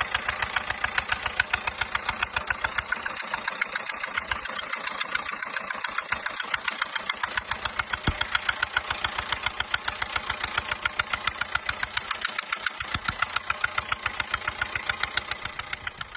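Chevrolet Spin diesel engine idling with a steady, rhythmic ticking, about five sharp ticks a second: the noise of a leaking fuel injector.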